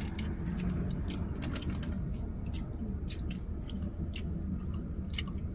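People chewing food close by, with many small irregular clicks and crackles, over a steady low hum inside a car cabin.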